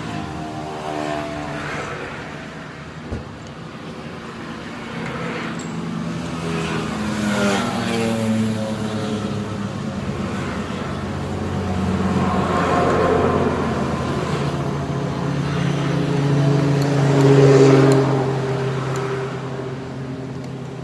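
Motor vehicle engines passing, their sound swelling and fading several times. There is a single sharp click about three seconds in.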